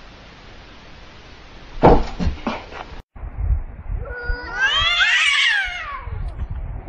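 A few loud thumps about two seconds in. Then a cat's long yowl, one drawn-out caterwaul that rises and then falls in pitch: the threat call of a cat squaring off against another cat.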